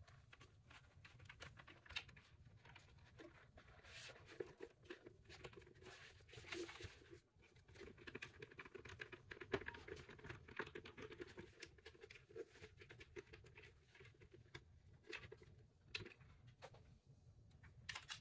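Faint, irregular clicks, taps and rustling from the plastic housing of a BMW pop-up navigation screen unit being handled and taken apart on a cloth-covered bench.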